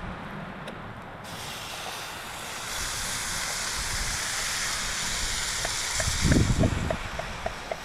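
Food frying in a pan, a hiss that starts about a second in and grows louder, with small pops of fat crackling in the later seconds. A brief low rumble about six seconds in is the loudest moment.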